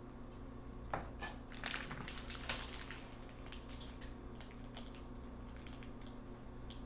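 A light clack of a spatula in a pan about a second in, then crinkling and rustling of plastic wrapping as sliced cheese is peeled from its packet, in short scattered bursts.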